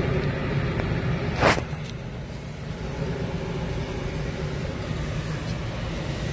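Steady low rumble, with one sharp click about a second and a half in.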